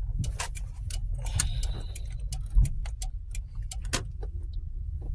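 Car moving slowly, heard from inside the cabin: a steady low rumble with a regular run of quick ticks, about four a second, and one thump about two and a half seconds in.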